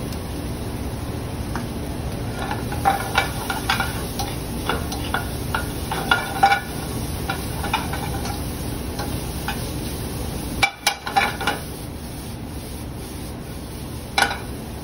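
Mushrooms, garlic and freshly added cabbage sizzling in a sauté pan over a gas burner, with a utensil clicking and scraping against the pan in a run of clicks a few seconds in and one louder clatter near the end.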